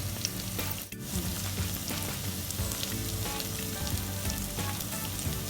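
Garlic, onion and bell pepper sautéing in hot oil in a pan, sizzling and crackling steadily, with a brief drop about a second in.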